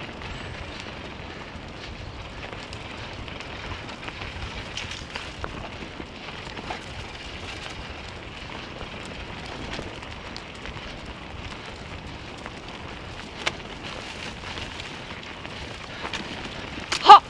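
Steady rolling noise of a dog scooter's wheels running fast over a dirt forest trail, full of small ticks from the ground, with one sharp knock about thirteen seconds in.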